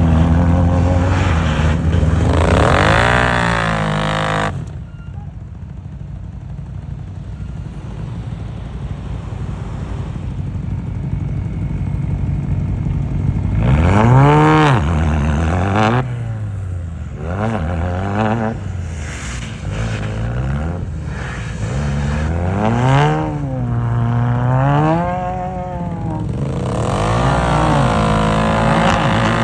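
A 4x4's engine revving up and down over and over under load, easing off to a quieter low run for several seconds after the first rise before the revs climb and fall again repeatedly.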